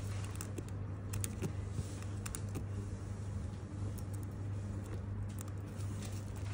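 Fingers handling a paper interleaf sheet and plastic card-sleeve pages in a trading-card binder: light rustling and scattered small clicks, over a steady low hum.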